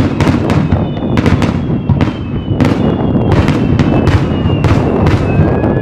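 Fireworks display: aerial shells bursting in rapid, irregular bangs, about two or three a second, over a continuous low rumble. Several high whistles slide slowly down in pitch between the bursts.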